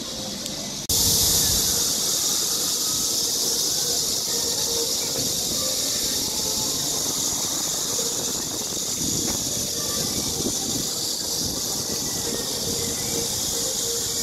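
Steady high-pitched hiss that starts abruptly about a second in and holds evenly, over a low background rumble.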